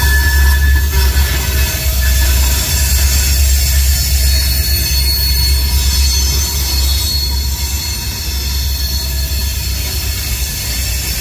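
Freight train's covered hopper cars rolling past close by: a steady low rumble of wheels on rail, with thin high squeals from the wheels above it. The rumble eases a little in the second half.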